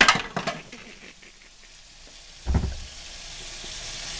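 Dishes clattering in a kitchen sink, a dull thump partway through, then the tap running with a steady hiss of water that grows louder.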